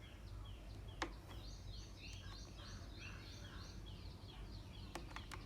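Small birds chirping rapidly and repeatedly over a low steady hum, with a sharp click about a second in and two more near the end.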